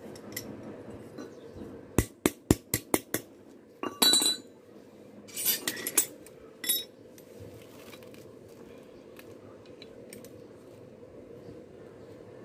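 A hammer striking steel on an anvil, six quick sharp blows about two seconds in, followed by clinks and clatter of metal tools being handled and set down. After that only a low steady hum remains.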